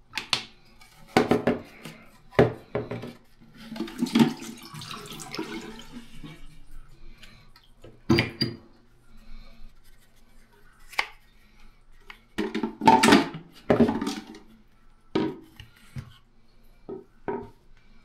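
Plastic parts of a Roborock Flexi Pro wet-dry vacuum's dirty-water tank being pulled apart and handled over a ceramic sink: irregular clicks, knocks and clatter, with a longer rustling stretch a few seconds in.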